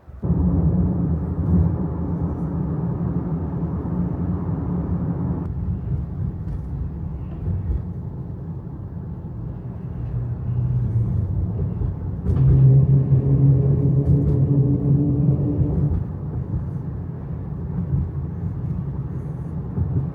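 A car driving, with a steady engine and road rumble. The tone shifts abruptly three times.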